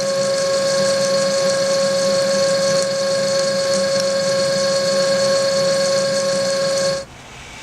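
Electromagnetic column drilling machine running with a steady whine over a rougher mechanical noise, cutting out abruptly about seven seconds in.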